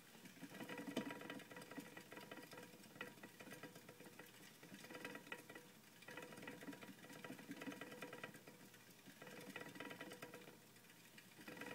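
Blue plastic exercise wheel spinning under a running teddy bear hamster: a faint rapid rattling with a whirring tone that comes in spurts of a few seconds, picking up and easing off about four times.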